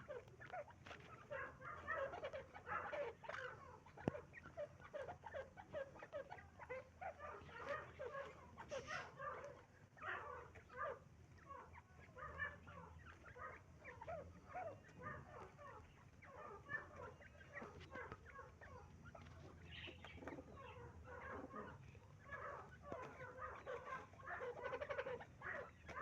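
Partridges calling with a dense, continuous run of short chirps and clucks, several birds overlapping.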